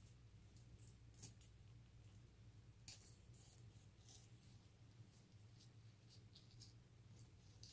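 Faint, crisp scraping and rasping of a kitchen knife cutting along the back of a red sea bream whose scales are still on, with a couple of sharper clicks early on, over a low steady hum.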